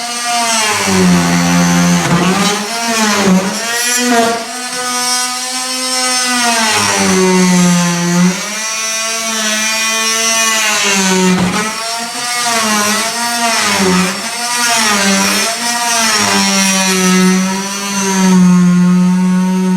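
Electric power tool cutting into pine floorboards: its motor's whine sags in pitch as the blade loads up in the wood and climbs back as it frees, over and over.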